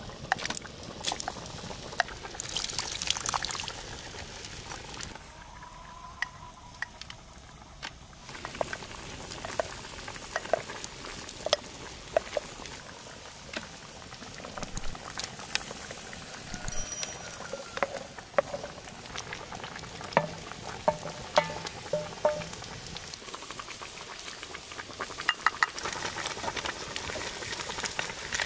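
Stew bubbling and simmering in a cast-iron pot over a wood fire, with many scattered clinks and taps of a spoon against bowls and the pot as ingredients go in.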